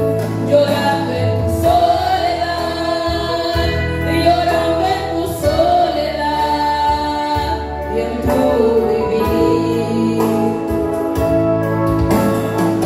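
A woman sings a gospel worship song into a microphone, accompanied by keyboard and acoustic guitars playing sustained chords.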